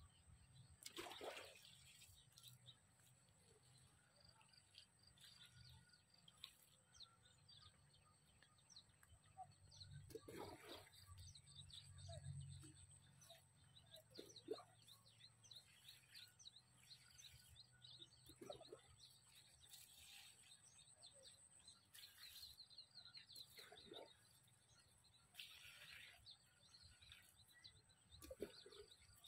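Faint birds chirping, with a few brief soft knocks now and then.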